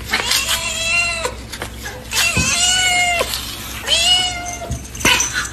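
Domestic cat meowing: three long meows of about a second each, then a short one near the end.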